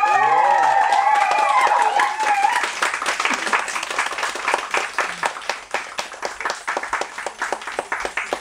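Small indoor audience applauding and cheering at the end of a dance performance: high voices cheer for the first two seconds or so over the clapping, then the clapping goes on alone and thins out toward the end.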